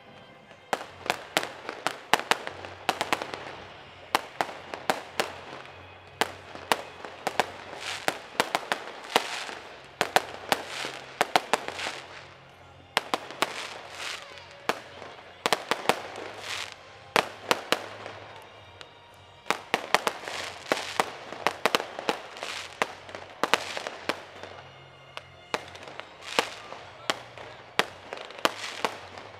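Fireworks display: a rapid series of sharp bangs and crackles from aerial shells and fountains, coming in waves with a couple of short lulls.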